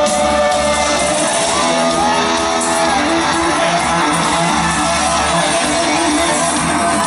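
Live rock band playing at full volume, electric guitar to the fore, recorded from the audience.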